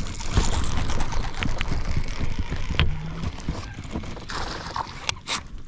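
A small bass being reeled in on a baitcasting reel from a kayak: the reel cranking and rod handling noise, with the fish splashing at the surface in the later seconds.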